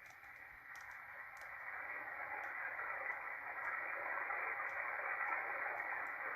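Shortwave static hissing from a Malachite DSP SDR receiver's speaker through a narrow filter, growing louder over the first few seconds and then holding steady. No Morse tone is keyed in it: the CW station has paused.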